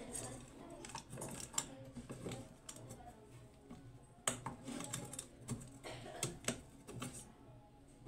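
Irregular clicks, taps and scrapes of a screwdriver and hands working on an amplifier circuit board, undoing the screws that hold the amplifier ICs to the metal heatsink. The clicking thins out near the end.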